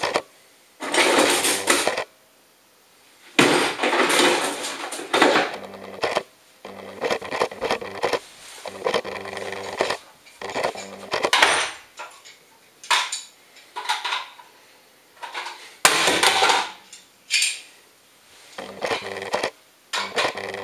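Metal hand tools clattering and rattling in irregular bursts, a toolbox being rummaged, then a tool worked against the plastic case of a small network switch.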